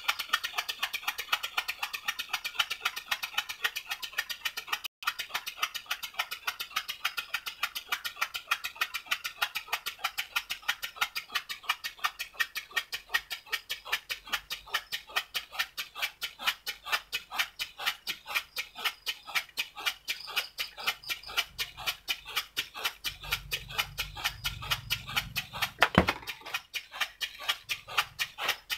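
Small homemade steam engine running steadily, its exhaust giving a quick even train of chuffs, about four or five a second, over a steady hiss. Near the end there is a short low rumble and then one sharp knock.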